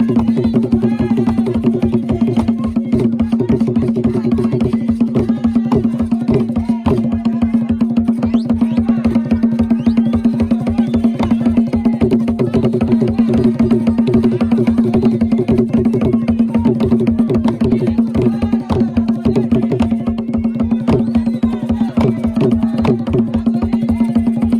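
Traditional Gule Wamkulu dance drumming: drums playing a fast, even rhythm, with voices over it and a steady low drone underneath.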